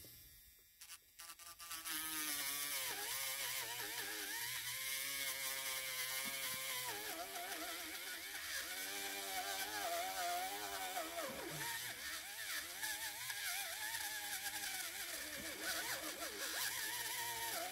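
Pen-sized cordless rotary tool whining as it grinds out a slot in a thin wooden panel, starting about two seconds in. Its pitch wavers up and down as the bit bites into the wood, over a grinding hiss.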